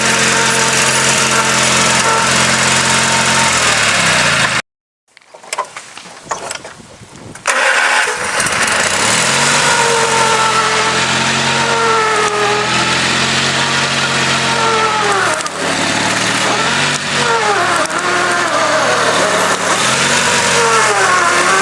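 Garden tractor engine running steadily, then breaking off suddenly about four and a half seconds in. After a few seconds of faint scattered sounds it comes back, its pitch repeatedly dipping and rising as it labours under load pulling on a stump.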